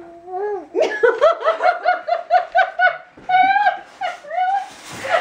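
A woman laughing hard: a quick run of high-pitched 'ha' pulses, about five a second, then a second, longer stretch of laughter.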